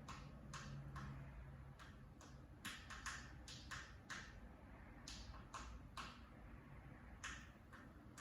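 Cockatiel beak banging: faint, irregular light knocks of its beak tapping against a fan, a few a second with short pauses.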